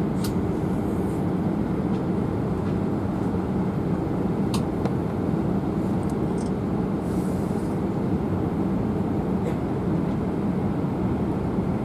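Steady low rumble heard from inside a moving or running vehicle, with a few faint clicks.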